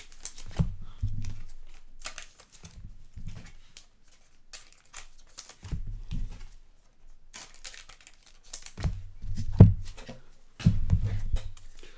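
Trading cards being slipped into soft plastic sleeves: irregular crinkling and rustling of thin plastic and card, with a few louder handling knocks about nine to eleven seconds in.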